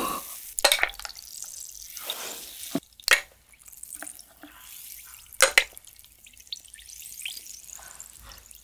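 Blue gum-filled candy balls dropped one by one into a stemmed glass of clear carbonated soda: three sharp plops a couple of seconds apart, over the steady faint hiss of the soda fizzing.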